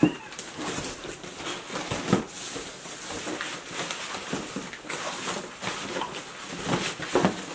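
Flat cardboard packing sheets being shifted and slid around inside a large shipping box: irregular rustling and scraping with a few soft knocks.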